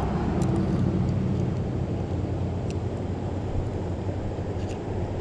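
Steady low engine rumble with a faint hum from a distant motor, with a few faint clicks.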